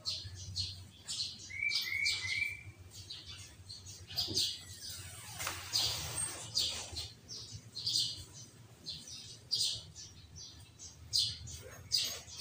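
Sooty-headed bulbul (kutilang) singing loudly: a fast, continuous string of short, sharp chirps and whistled notes, with three short level whistles about two seconds in. The song is filled with mimicked green leafbird (cucak ijo) phrases.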